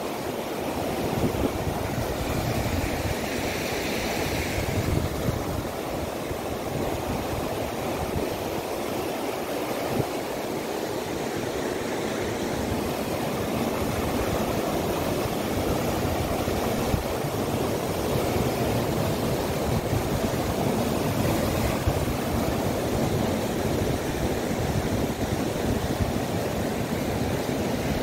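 Fast mountain river rushing over rocks in white-water rapids, a steady, unbroken wash of water noise.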